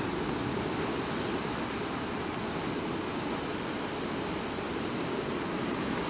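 Steady rush of sea surf mixed with wind, with no separate breaks standing out.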